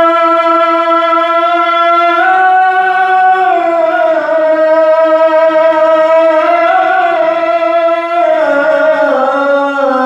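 A man's solo voice chanting the adhan, the Islamic call to prayer, into a microphone. He holds long, melodious melismatic notes that rise and fall in pitch and sink lower near the end.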